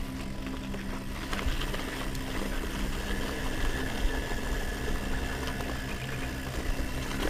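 Mountain bike rolling over loose gravel, with tyre crunch, frame rattle and wind noise on the microphone, over a steady low hum.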